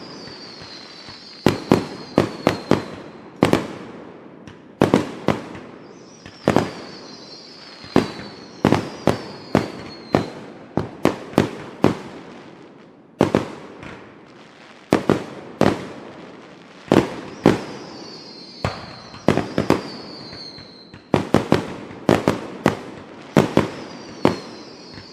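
Consumer fireworks going off in rapid, irregular volleys of sharp bangs and pops, with a high whistle gliding down in pitch several times between them.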